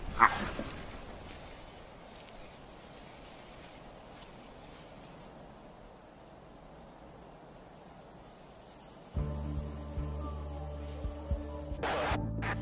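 Crickets trilling steadily at dusk, a high, even pulsing chirr. A short sharp call sounds right at the start, and a low musical drone comes in about nine seconds in.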